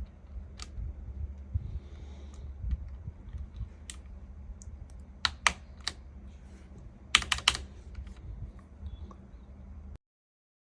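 Mechanical keyboard keys clicking as keycaps are pressed onto the switches: scattered single clicks, then a quick run of several about seven seconds in, before the sound cuts out about ten seconds in.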